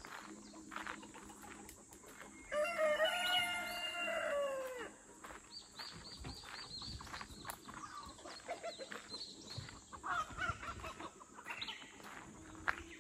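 A rooster crows once, a long call whose pitch drops at the end, over steady footsteps crunching on a gravel track. A shorter call follows about ten seconds in.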